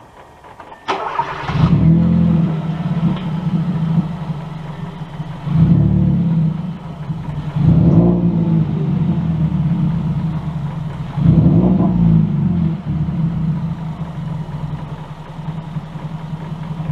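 Hyundai Veloster's GDI four-cylinder engine cranks and catches about a second in, then idles with four short revs, each falling back to idle. It breathes through the stock air filter box and runs with the muffler removed.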